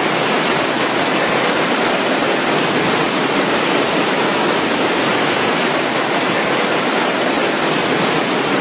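Floodwater rushing in a loud, steady, unbroken roar.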